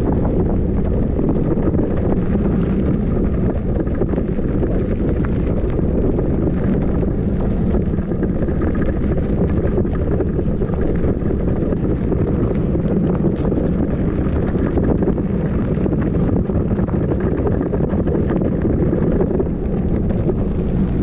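Wind buffeting the microphone of a rider on the move: a steady, heavy low rumble that does not let up.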